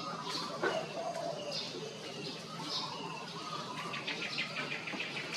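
Short high chirping calls repeating about once a second, with some lower wavering calls and a quick rattling run of clicks about four seconds in.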